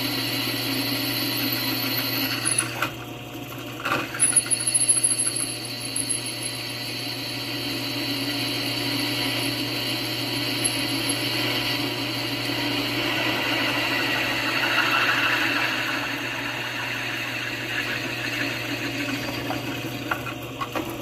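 Drill press running, its freshly hand-sharpened twist bit cutting dry through a steel plate without oil: a steady motor hum under the scraping of the cut. The cut eases about three seconds in, then clatters loudly for a moment, then carries on. The bit cuts cleanly without biting or grabbing, the sign of a well-sharpened edge.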